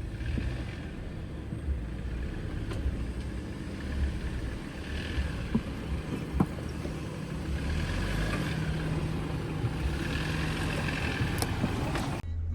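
Off-road Jeep engine running at low revs under varying load while crawling over rock, with a few sharp knocks. The sound cuts off abruptly near the end.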